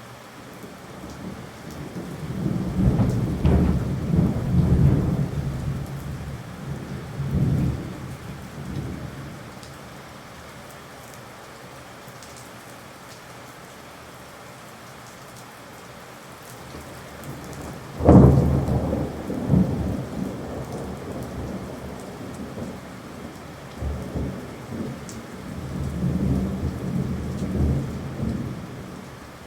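Steady rain with rolling thunder: a long rumble in the first third, a sharp clap about eighteen seconds in that trails off into rumbling, and more rumbling near the end.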